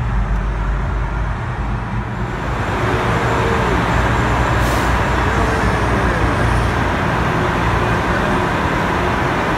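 Road traffic noise in a tunnel: tyre and engine noise from a car driving alongside a tanker truck. It gets a little louder and fuller about two seconds in, as the car draws level with the truck.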